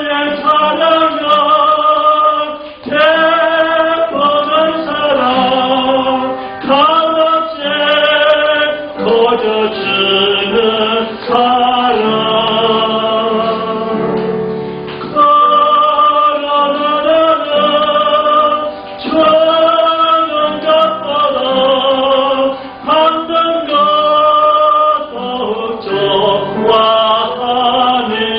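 A Korean worship song sung with musical accompaniment, the voice holding long melodic notes.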